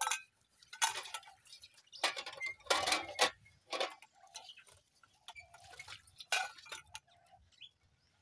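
Enamel mugs, plates and metal basins clinking and knocking together as dishes are washed and set down: a string of sharp, irregular clinks, busiest around the middle.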